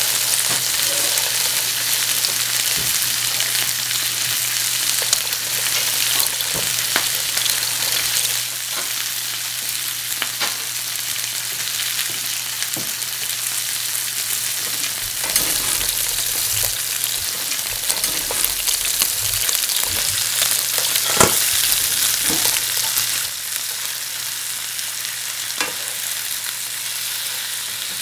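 Steak frying in oil in a nonstick frying pan: a steady sizzle with occasional sharp pops.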